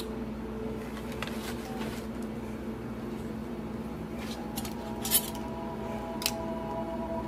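A few light clinks and taps of hard objects being handled and set down, the sharpest about five seconds in and another a second later, over a steady low hum.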